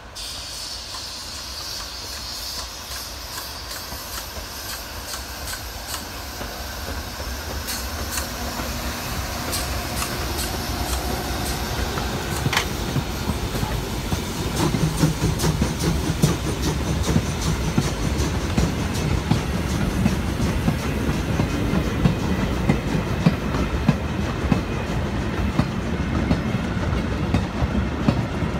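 Steam train with a tank locomotive passing close by, growing steadily louder as it comes near; in the second half the goods wagons roll past with a rapid clickety-clack of wheels over the rail joints and a heavy rumble.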